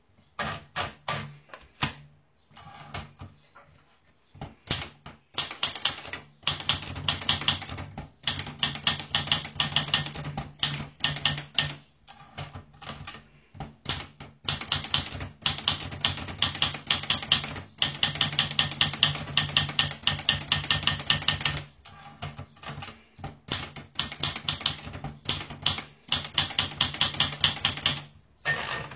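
Rapid keystroke clicking, typing in bursts of a few seconds with short pauses between them. A low steady hum sits under the busier runs.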